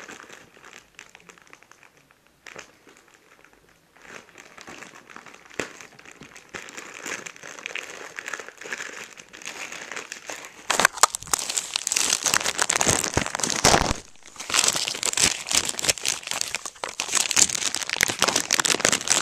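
Plastic packaging crinkling and crackling as it is worked and cut open with a knife. It is faint at first and much louder from a little over halfway through, with a brief pause soon after.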